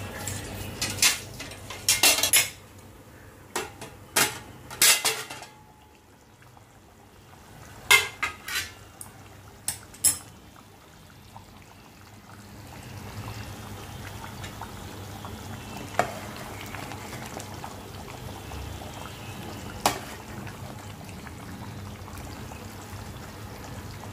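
Metal utensil clinking sharply against a metal cooking pot, several times over the first ten seconds. From about halfway, the chicken curry bubbles steadily at a simmer, with two single clinks later on.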